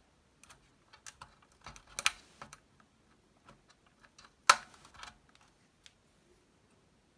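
Fingers prying a socketed video RAM chip out of its socket on a TRS-80 Model 1 circuit board: a scattered series of small clicks and scrapes, the loudest click about four and a half seconds in.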